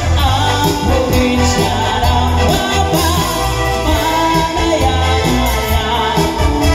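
Live band playing through a PA sound system: electric guitars and bass with a sung vocal.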